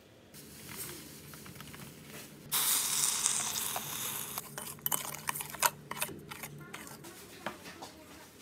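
Water poured from a cup onto granulated sugar in a stainless steel bowl, a hiss of about two seconds that starts suddenly a couple of seconds in. It is followed by a metal spoon clinking against the steel bowl as it stirs.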